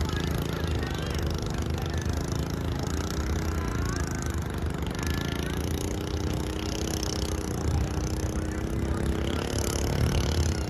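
Boat engine running steadily with a low throb, its pitch rising and falling slightly as the throttle changes.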